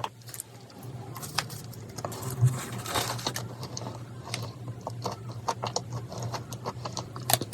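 Close-miked eating sounds: soft wet chewing of a dried-persimmon and cream-cheese dessert, a run of small scattered mouth clicks with a noisier stretch about three seconds in, over a faint low hum.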